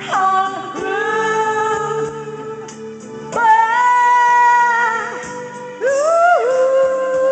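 Karaoke singing: a voice holds three long, wavering notes, one after another, over a steady keyboard backing track.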